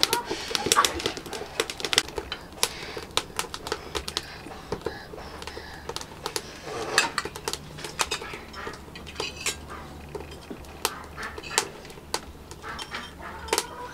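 Eating sounds: a spoon clicking and clinking against a bowl, many sharp light clicks scattered throughout, with mouth noises from eating.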